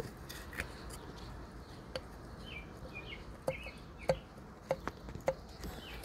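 Piston in a cylinder of a 70 hp Johnson three-cylinder two-stroke outboard being rocked by hand, knocking against the cylinder wall in a series of short, sharp clicks that come about every half second in the second half. The knock is piston slap from piston-to-wall clearance beyond spec, which has scored the cylinder beside the intake ports.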